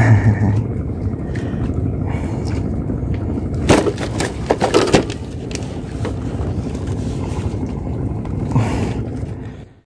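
Steady low rumble, with a cluster of sharp knocks and rattles about four to five seconds in as a caught fish is handled in a landing net on a bamboo deck.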